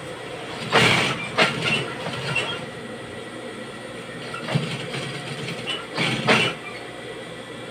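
JUKI industrial sewing machine running with a steady motor hum, broken by short bursts of stitching about a second in, around four and a half seconds in, and about six seconds in.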